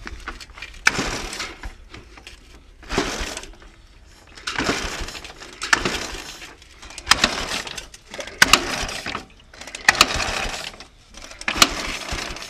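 Ural Tourist motorcycle's flat-twin engine being kick-started over and over, about eight kicks each a second or two apart: a sharp clack of the kick-starter followed by the engine turning over briefly without catching. It is not firing on its newly fitted electronic ignition.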